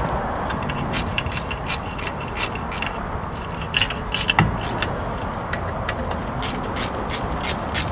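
Ratchet wrench clicking in short, irregular runs against the front spindle hardware, with a louder metallic knock about halfway through.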